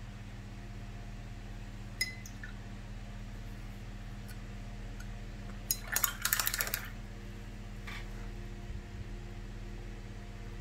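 Painting supplies being handled on the table: a single small clink about two seconds in and a short rattling clatter around six seconds, over a steady low electrical hum.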